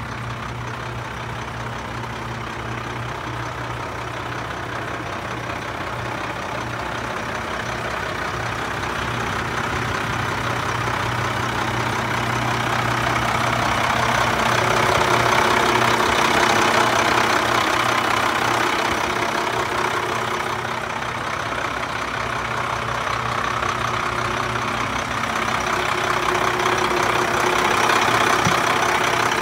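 1997 Freightliner FL80 truck engine idling steadily with a low, even hum. It grows louder toward the middle and again near the end, when heard close to the open engine bay.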